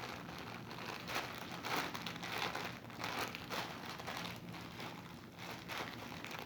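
Packaging crinkling and rustling in irregular bursts as it is handled and opened by hand.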